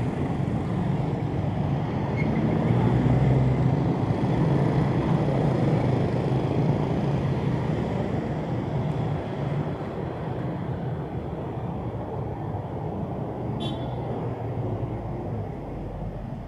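Street traffic: car and motorcycle engines running and passing over paved road. It swells a few seconds in, then slowly fades.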